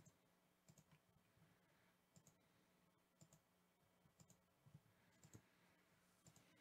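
Faint computer mouse clicks, about ten of them at uneven spacing, as a web page button is clicked over and over.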